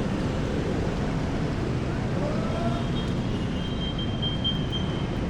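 Steady road traffic noise from passing vehicles, with a faint distant voice briefly about two seconds in.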